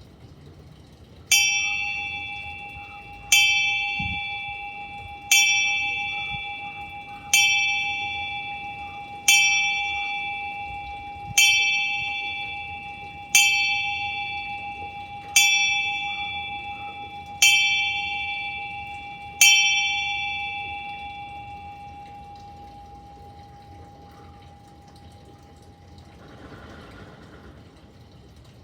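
A bell struck ten times at an even pace, about one stroke every two seconds. Each stroke rings on and fades slowly, and the ringing dies away a few seconds after the last stroke.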